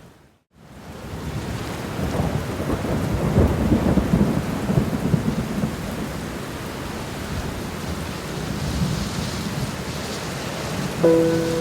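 Steady rainfall with a long, low rumble of thunder rising and fading over a few seconds, after a brief dip to silence at the start. Sustained soft musical tones come in near the end.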